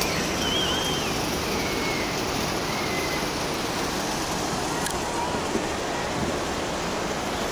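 Steady rushing of water from the poolside fountain and the ocean surf, with faint high chirps in the first few seconds.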